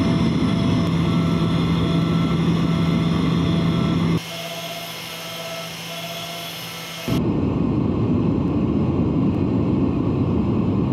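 DN Solutions SVM 4100 CNC vertical machining center milling an aluminium part: a steady spindle hum under the hiss of the cut, with a faint repeating tone. The sound drops to a quieter level about four seconds in and comes back loud about three seconds later.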